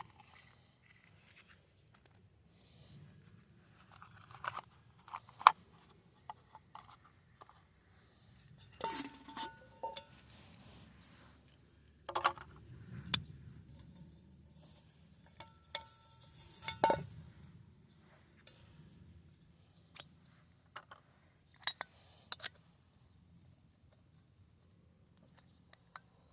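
Metal camp cookware and utensils clinking and scraping now and then, with sharp clicks, a couple of which ring briefly.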